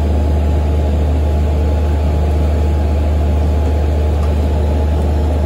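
Steady low drone of the vessel's engines and machinery, running evenly throughout.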